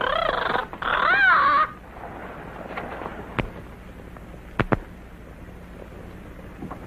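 A voice calls out loudly twice, its pitch rising and falling, and stops after under two seconds. Then comes faint old-film soundtrack hiss with a few sharp knocks: one about three and a half seconds in, and a quick pair about a second later.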